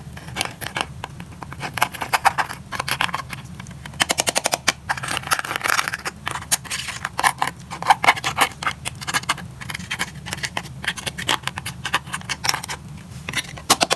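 Slime with eyeshadow mixed in, being squeezed and worked by hand: a continuous stream of irregular wet clicks and pops, with a quick rattling run of clicks about four seconds in.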